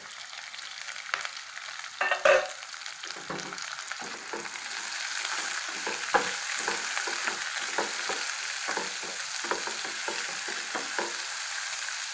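Chopped onion sizzling in hot oil in a metal frying pan while a spatula stirs it, scraping the pan in short repeated strokes. A loud clatter comes about two seconds in, and the sizzle swells from about four seconds in as the onion heats.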